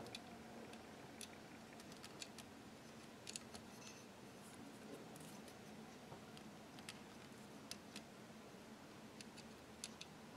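Faint, irregular small clicks of parts being handled and worked into the open receiver of a BRS-99 9mm gun, over a low steady hiss.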